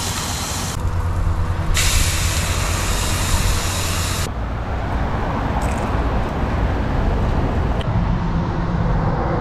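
Fish fillets sizzling in a hot frying pan, a loud steady hiss over a low rumble. About four seconds in, the sizzle cuts off, leaving only a low rumble.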